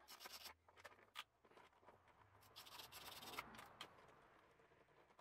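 Faint scraping and rubbing with a few light clicks: hands and a tool working loose the plastic vacuum-line fittings on a Ford DOHC V6 intake manifold, brittle enough that several have broken.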